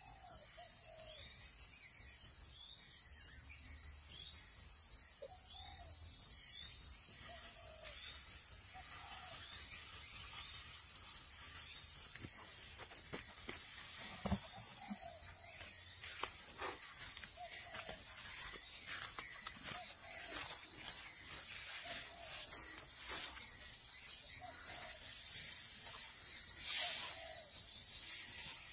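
A steady, fast-pulsing high trill from a jungle insect chorus, with a short low call repeating every second or two beneath it. A few sharp cracks and rustles stand out, one about halfway through and a louder one near the end.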